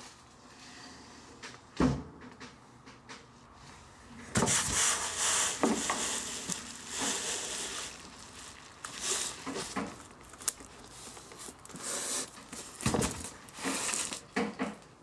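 A chair being pushed up through an attic hatch, knocking against the hatch frame and scraping and rustling over the edge and floor. There is a sharp thump about two seconds in, long scraping from about four seconds, and another heavy knock near the end.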